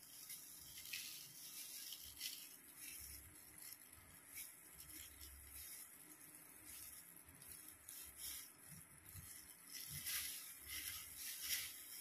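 Faint, irregular wet swishes and rustles of a comb drawn back through hair coated with dye, worked by hands in plastic gloves.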